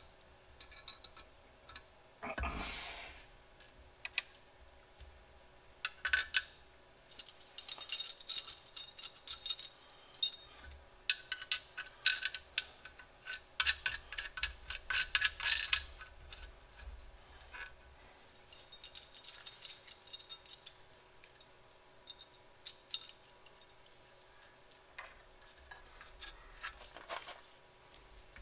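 Small metallic clinks and taps of nuts and hardware being fitted by hand on a truck's front air-brake chamber and mounting bracket, in irregular clusters that are busiest in the middle. A short scraping rustle comes about two and a half seconds in.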